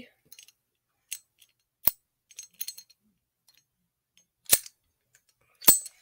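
Mindy padlock being worked with its key in it: four sharp metal clicks of the shackle and lock mechanism, spread a second or more apart, with faint small rattles between.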